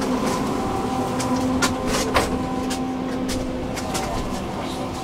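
Tram in motion: a steady electric drive hum, with sharp clicks and knocks from the wheels running over the rails.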